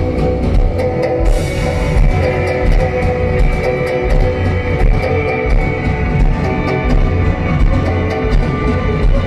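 A Korean post-rock band playing loud and live: drum kit beating steadily under sustained pitched tones and a heavy, thick low end.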